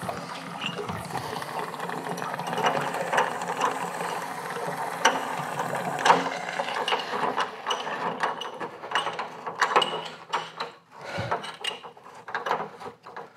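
Rapid metallic clicking and rattling as an electric water heater's heating element is worked out of its threaded port and the new one is threaded in by hand. Over the first half this sits on a steady rush, which is the tank's water spilling from the open port into a bucket; near the middle the rush stops and only the clicks go on.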